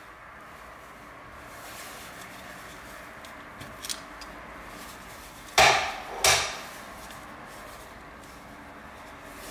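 A Perfecta TP III tactical pen handled in gloved hands: a small click as its sections are twisted apart, then two sharp knocks, about two-thirds of a second apart, of the metal pen against the glass top of a scale.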